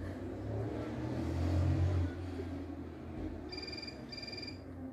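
A low rumble swells and fades. Then, about three and a half seconds in, a phone rings twice in short electronic trills: the incoming call about to be answered.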